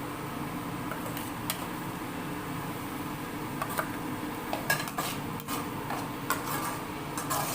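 A metal spoon stirring and scraping in a cooking pan as onion paste is mixed into a frying tomato masala, with scattered clicks of metal against the pan.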